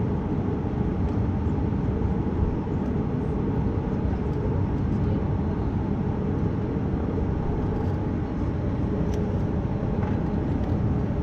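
Steady low rumble inside the cabin of a Boeing 737 MAX 8 taxiing, from its CFM LEAP-1B engines and the aircraft rolling along the taxiway.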